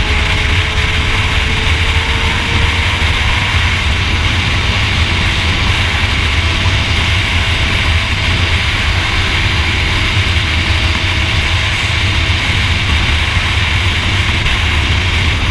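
Sport motorcycle cruising at steady highway speed: a steady engine drone under a heavy rush of wind buffeting the microphone.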